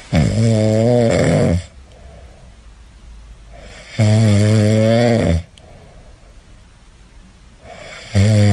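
A cat snoring in its sleep: a loud, buzzing snore about every four seconds, each lasting about a second and a half, with quieter breathing between.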